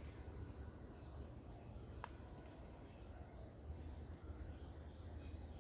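Faint steady high-pitched insect drone in the garden, with a low hum beneath it and one short click about two seconds in.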